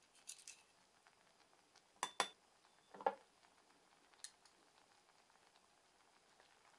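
A small metal spoon scraping mustard powder out of a tin, then a couple of sharp clicks and a ringing clink as the spoon and tin meet a small glass dish and cup, with a faint tick a little later.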